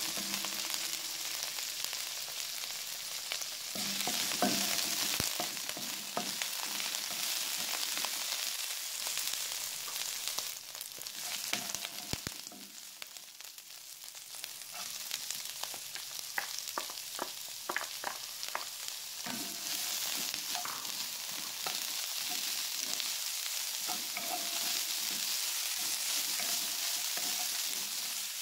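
Curry leaves, diced celery, ginger and red chilli sizzling in hot oil as they are stir-fried, with a wooden spatula scraping and tapping against the non-stick pan; a quick run of spatula taps comes a little past the middle, and chopped cabbage is in the pan by the end.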